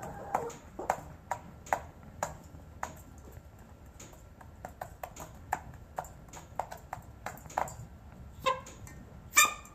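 Chickens sneezing: a string of short, sharp, clicking sneezes at irregular intervals, with a louder, fuller sneeze near the end.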